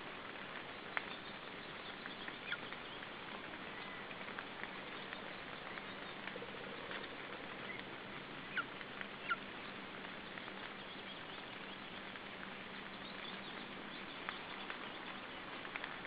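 Steady outdoor hiss with a faint low hum, dotted with a handful of short, high chirps and ticks, the loudest two close together about halfway through.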